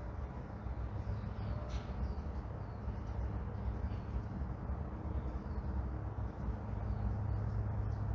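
Morning neighborhood ambience: a steady low rumble of distant traffic, with small birds chirping faintly and one clearer chirp nearly two seconds in.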